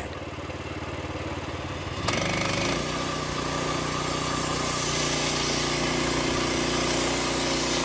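Small gasoline engine of a Norwood Frontier OS-27 portable bandsaw mill idling. About two seconds in it throttles up sharply with a rush of hiss, and its pitch climbs for a moment before it runs steadily at high speed.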